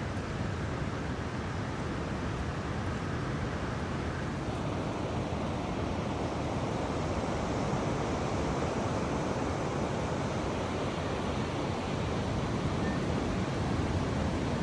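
Steady rush of flowing water, growing a little louder in the second half.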